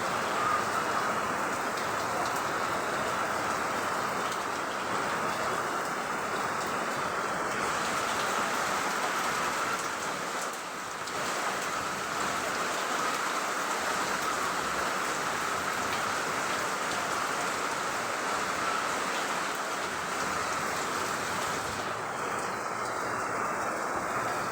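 Steady rain pouring down, an even unbroken hiss.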